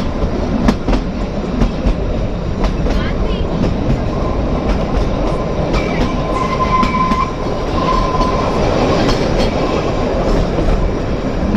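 Kalka–Shimla narrow-gauge toy train running: a steady rumble of the carriage with irregular clatter of wheels on the rail joints, and a faint steady whine from about six to eight seconds in.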